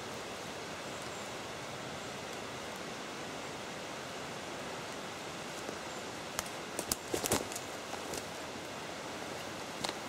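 Steady rush of water, even and unbroken. A cluster of sharp clicks and cracks comes about six to eight seconds in, and one more near the end.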